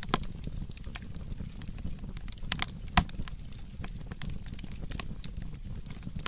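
Burning firewood crackling, with scattered sharp pops over a low steady rumble; the loudest pop comes about halfway through.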